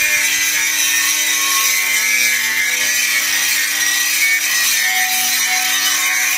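Angle grinder grinding rust off the steel brake drum of a ship's anchor windlass: a loud, steady, harsh grinding over a constant motor hum, cleaning the drum before the new brake lining is fitted.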